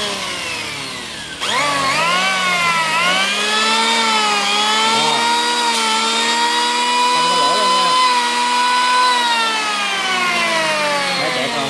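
Handheld electric curved-sole planer switched on: its motor and cutter drum spin up with a rising whine, then run at a steady high pitch. Over the last few seconds the pitch slowly falls as it winds down.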